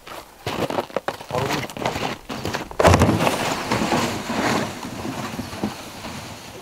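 Plastic toboggan scraping over packed snow as it is pulled away, with snowshoe steps crunching. The loudest scrape comes about three seconds in, as the sled jerks into motion, and the sound fades as it moves off.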